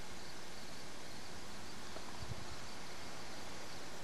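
Steady outdoor background noise with faint insect chirping, and one soft low thump a little past two seconds in.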